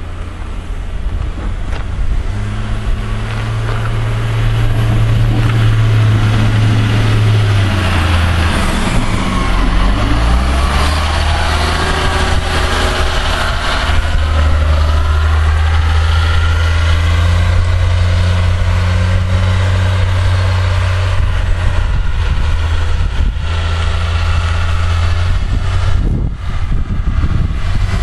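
Diesel engine of a wheel loader clearing snow, running loud and close. It grows louder over the first few seconds, then its revs dip and climb again about eight to ten seconds in, before settling into a steady, heavy run.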